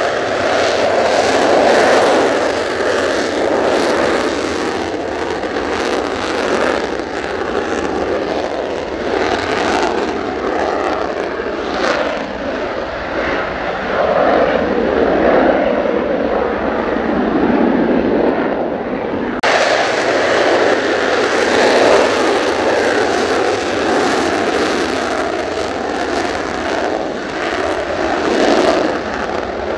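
Mitsubishi F-2 fighter's single F110 turbofan running at full afterburner on the takeoff roll and climb-out: a loud, steady jet roar. About two-thirds of the way through, the sound changes abruptly to a second F-2 on its afterburner takeoff roll.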